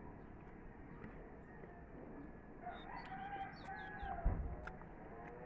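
A rooster crowing once, faint, the crow lasting about a second and a half, with a few short high chirps from small birds and a low thump near its end.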